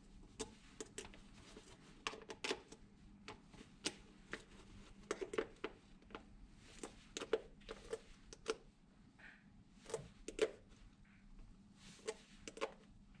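Stud wrench clicking and scraping on the screw-in metal studs of a soccer boot's SG soleplate as they are unscrewed, with irregular light clicks and knocks from handling the boot.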